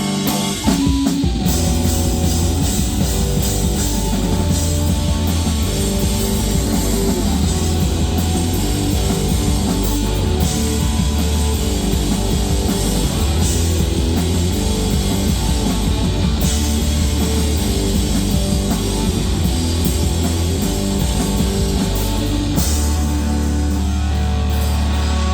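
Live rock band playing an instrumental stretch of a song: guitar, bass and drum kit, loud and steady, with cymbal crashes every several seconds.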